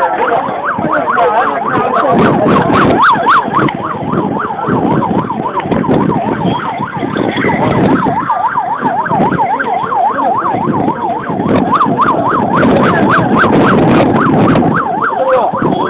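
Emergency vehicle siren in a fast yelp, its pitch sweeping up and down about three times a second, over a background of crowd commotion.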